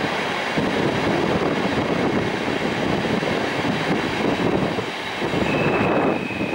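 Thalys high-speed train pulling out, a steady rumble of wheels on track. A high, steady squeal comes in near the end.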